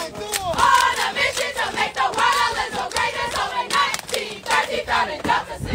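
A group of women chanting and singing together in unison as they stroll, with onlookers shouting over them and sharp percussive hits cutting through.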